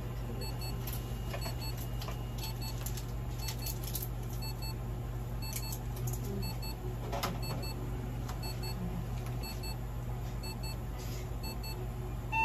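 Steady low electrical hum of clinic equipment with a faint high electronic pip repeating at an even pace, and a few soft handling clicks.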